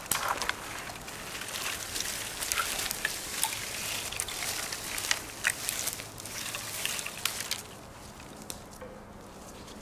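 Long dead sapling pole dragged through moss and dry brush: a rustling scrape full of small crackles and twig snaps, which dies down near the end as the pole moves away.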